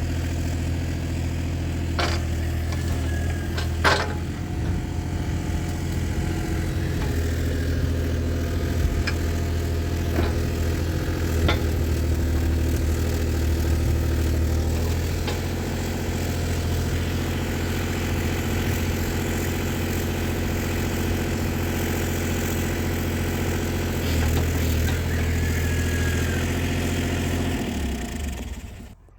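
An engine idling steadily, with a few sharp metallic knocks over it, then shut off and running down just before the end.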